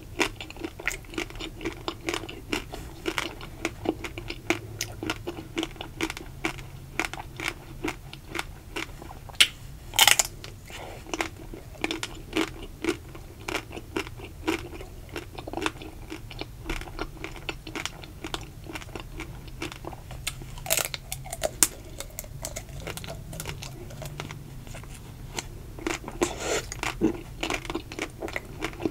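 Close-up eating sounds: the crisp ruby chocolate shell of an ice cream bar crunching and being chewed, a dense run of small crackles with a few louder crunches, one about ten seconds in and another about twenty-one seconds in.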